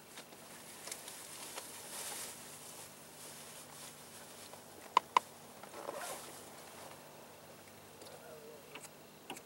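Faint steady hiss of wind and rippling water around a small boat on open water, with two sharp clicks close together about five seconds in.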